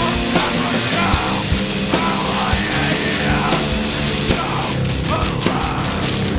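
Sludge metal / hardcore band playing: heavily distorted guitars and bass over drums, with sharp hits about every half second and crashing cymbals.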